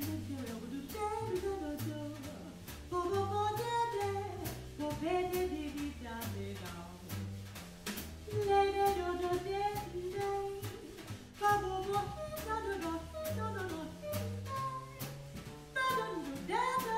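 Live jazz: a woman sings a melody into a microphone over a plucked upright bass and a drum kit keeping time with regular cymbal strokes.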